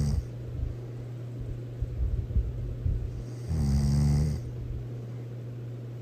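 A person snoring loudly: one long snore about three and a half seconds in, a low rattling buzz with a breathy hiss, after the tail of an earlier snore right at the start. A steady low hum runs underneath.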